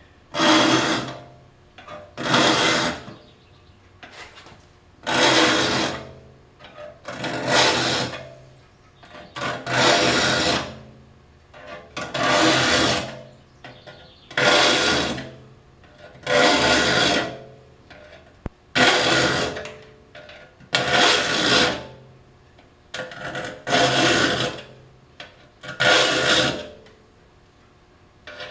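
Saw file being pushed across the teeth of a Disston D8 rip saw in a saw vise: about a dozen long, even rasping strokes, one roughly every two seconds, each file stroke sharpening one tooth. A faint ringing tone sounds under each stroke.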